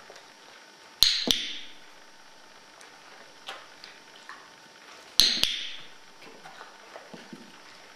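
A dog-training clicker pressed and released twice in two pairs, each a sharp double click a quarter-second apart, about a second in and again about five seconds in, marking the dog's correct choice. A few softer taps of plastic containers being handled fall in between.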